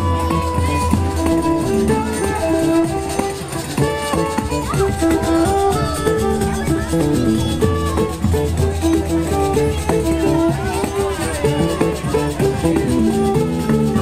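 Live forró music played by a band.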